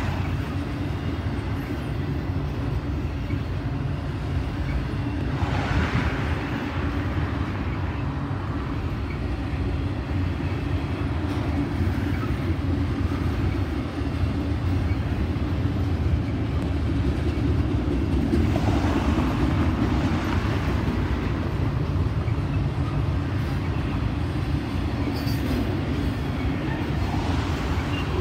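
Double-stack intermodal well cars rolling past: a steady low rumble of steel wheels on rail, with the noise swelling twice, around five seconds in and again just before twenty.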